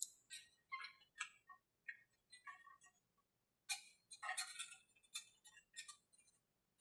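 Scattered faint clicks and light taps from thin wooden model-airplane parts being handled and pressed together while masking tape is smoothed on, with a short cluster of them a little past halfway.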